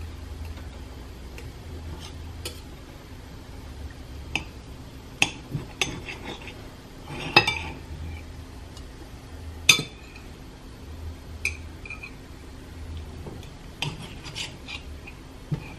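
Table knife and fork cutting through a biscuit-crust pizza on a plate: scattered clinks and scrapes of metal on the plate, with the two sharpest clinks around the middle.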